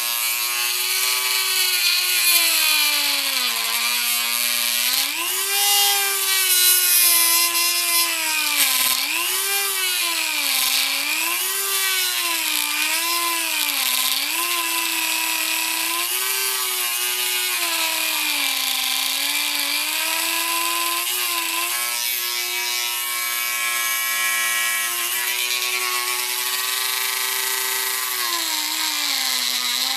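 A Dremel rotary tool with a grinding bit whining at high speed, its pitch repeatedly sagging and recovering as the bit bears on and grinds through the plastic dipstick tube.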